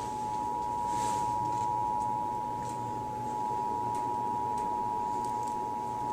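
Emergency Alert System two-tone attention signal: two steady tones (853 and 960 Hz) sounded together as one harsh, unwavering pitch. It is the alert tone that precedes an EAS message, here for a coordinated monthly test.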